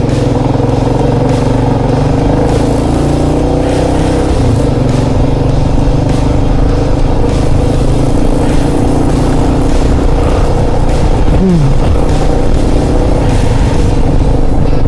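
Kawasaki KLR650's single-cylinder engine running steadily at road speed, with heavy wind noise. The engine note shifts once about four seconds in.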